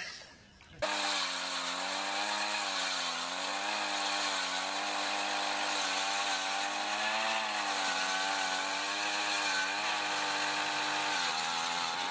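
Gas-powered ice auger's small engine running at full throttle as its spiral bit drills down through the ice; it starts abruptly about a second in and holds steady, its pitch wavering slightly as the bit bites.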